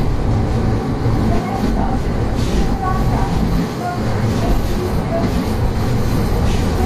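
Kobe Electric Railway three-car electric train running along the line, heard from inside the leading car: a steady rumble of wheels and running gear, with short high squeaks now and then.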